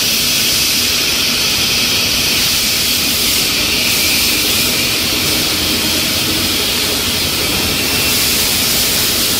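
Latex balloon dipping line running: a loud, steady machine noise with a strong hiss, and a faint low hum that fades about two-thirds of the way through.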